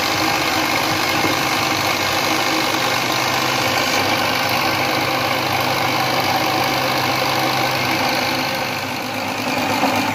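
Electric food processor motor running steadily, its blades mincing raw chicken, bread and spices into a paste for nuggets.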